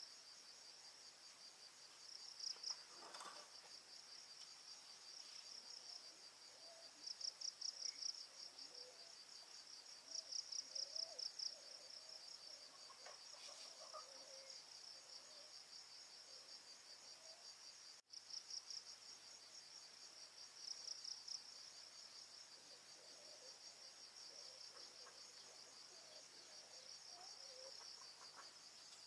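Insects trilling in a steady, high-pitched, pulsing chorus that swells into louder bursts every few seconds. It is faint overall.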